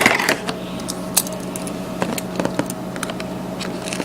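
Trading-card hobby box and its contents being handled: scattered light clicks and rustles of cardboard and card packs, over a steady low hum.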